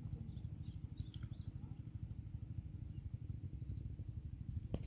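Small birds chirping faintly, mostly in the first second or so, over a steady low rumble. A single sharp click near the end.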